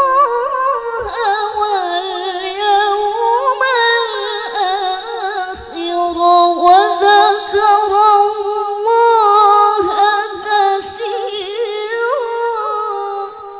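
A woman reciting the Quran in the melodic tilawah style through a microphone, holding long notes decorated with quick wavering runs; the recitation ends on a long held note at the close.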